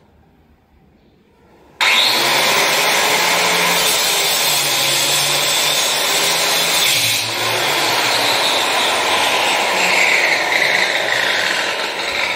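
Electric power tool switched on about two seconds in and cutting under load, its motor pitch wavering as it works.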